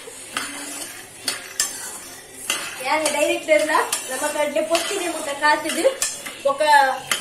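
Dry peanuts being dry-roasted in a metal kadai, stirred with a steel spoon. The spoon scrapes and clinks against the pan in repeated strokes while the loose nuts rattle.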